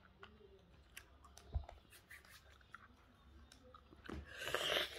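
Small plastic clicks and soft handling noises from a Hubba Bubba Bubble Tape container, with faint chewing of gum. About four seconds in comes a loud rush of noise lasting under a second.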